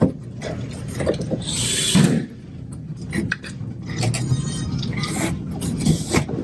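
Handling noises as a ceiling tile and its camera mounting bracket are worked back into place: scattered knocks and clicks, with a scraping rush ending in a knock about two seconds in.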